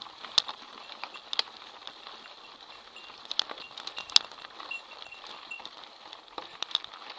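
Mountain bike rattling over a rocky, gravelly singletrack: tyres crunching on loose stones, with irregular sharp clacks and knocks from the bike, the loudest about four seconds in.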